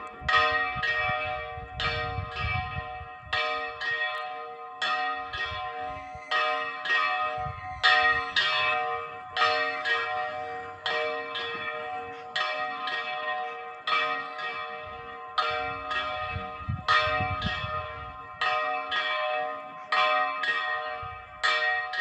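Church bells of Monreal ringing, struck over and over at roughly one stroke a second. Each stroke sets off a cluster of ringing tones that overlaps the next.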